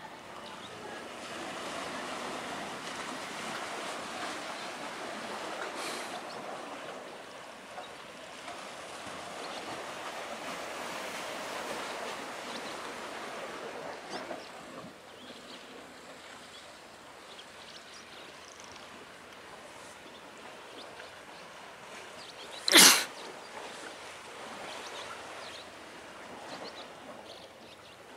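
Sea surf washing against a concrete tetrapod breakwater, a steady wash that is fuller for the first fourteen seconds or so and then eases. One sharp, loud click cuts through late on.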